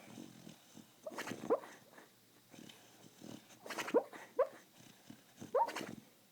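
A beagle barking in its sleep while dreaming: short, rising yips and woofs in three clusters about two seconds apart, with noisy breaths between.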